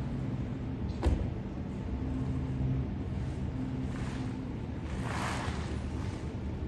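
A boat engine runs with a steady low hum over water and wind noise. There is a short knock about a second in and a brief rush of noise around five seconds in.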